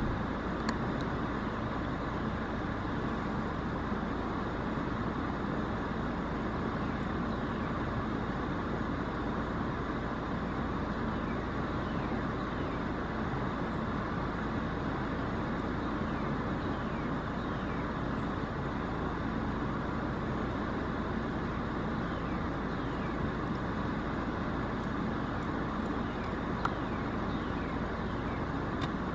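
Steady, even background noise, like distant traffic, with a few faint, short, high chirps now and then.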